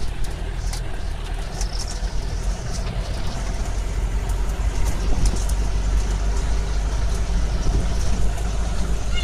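Safari jeep's engine running steadily while driving along a dirt track, a low drone with road rumble heard from inside the vehicle, and a few light rattles in the first two seconds.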